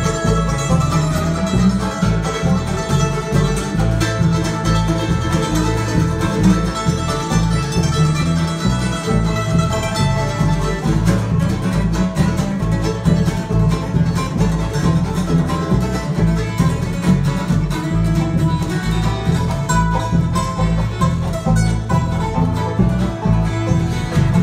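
Live acoustic bluegrass band playing an instrumental passage: banjo, fiddle, mandolin and acoustic guitars over upright bass keeping a steady beat.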